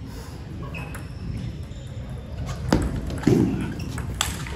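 Table tennis rally: a celluloid-type ping-pong ball knocking sharply off paddles and the table, a few hits spaced about a second apart, with a heavier thud about three seconds in, over the hum of a large hall.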